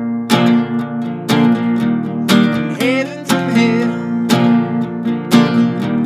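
Acoustic guitar strummed in a steady rhythm, a strong chord stroke about once a second with lighter strokes between.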